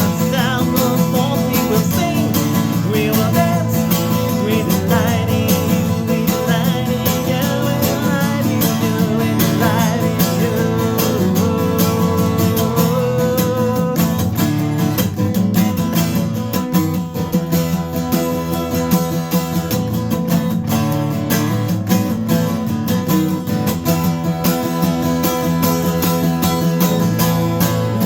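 Instrumental break of an upbeat gospel praise song, led by strummed acoustic guitar over a full band with a steady beat.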